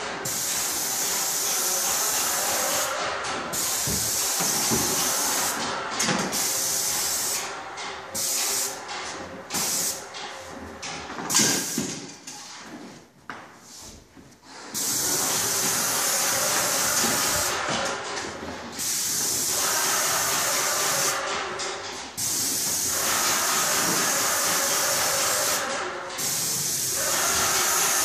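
Airless paint spray gun hissing as it sprays paint, in long steady spells broken by short pauses where the spray stops and restarts, the longest pause about halfway through.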